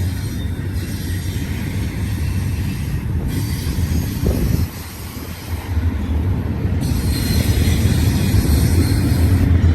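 Cars of a BNSF double-stack intermodal freight train rolling past: a steady rumble of wheels on rail. It dips briefly about five seconds in, then grows louder toward the end. No horn sounds.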